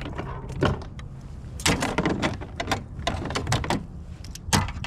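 Irregular sharp clacks, knocks and scrapes of gear being handled on a fishing kayak, about a dozen in a few seconds, the loudest at about a second and a half in and near the end, over a steady low rumble.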